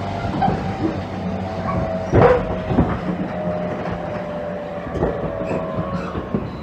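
JR Kyushu 813 series electric train heard from inside the car: the Toshiba GTO-VVVF inverter's whine drifts slowly lower in pitch as the train slows toward a station, and the wheels clack over rail joints three times.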